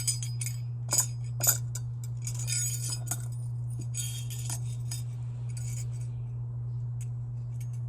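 Gold-tone metal necklace links and rings clinking and jingling as they are handled, in short clusters of light metallic chinks with pauses between, over a steady low hum.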